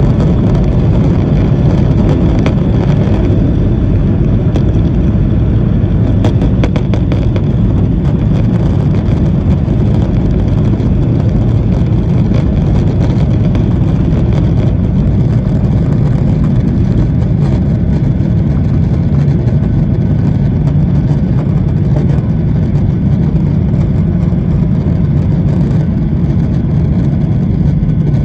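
Jet airliner's engines at takeoff power heard from inside the cabin: loud, steady, deep engine noise through the takeoff roll and liftoff. A few faint rattles come a few seconds in.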